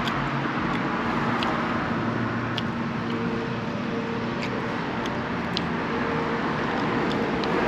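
Steady hum of an idling vehicle, with a few faint short clicks scattered through it.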